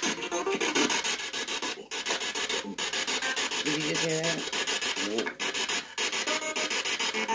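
Spirit box radio sweeping rapidly through stations: a hissing static chopped evenly many times a second, with brief snatches of broadcast voice cutting through near the middle.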